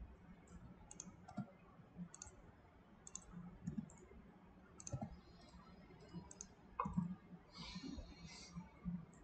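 Faint, irregular clicking of a computer mouse and keyboard, with a denser run of clicks about eight seconds in.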